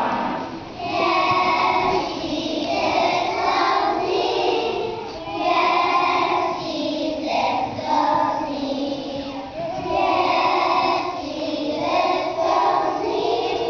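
A group of young children, three to five years old, singing a song together, phrase after phrase with short breaths between.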